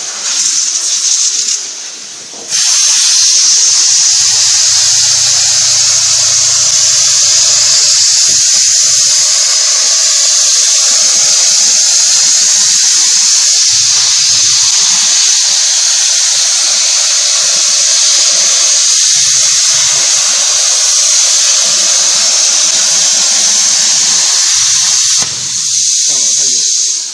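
Hypertherm-powered CNC air plasma torch cutting steel plate: a loud, steady high-pitched hiss. A short burst comes first, and the continuous cut starts about two and a half seconds in. Near the end it drops to a quieter hiss.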